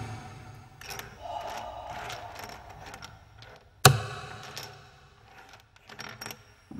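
Sparse instrumental passage of a 1990s Hindi pop song: a held mid-pitched tone, then a single loud percussive hit about four seconds in that fades to near quiet before the music picks up again at the very end.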